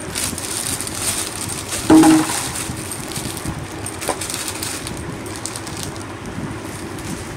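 Clear plastic jewellery packets crinkling and rustling as they are handled, with small clicks of metal earrings inside; a brief louder sound about two seconds in.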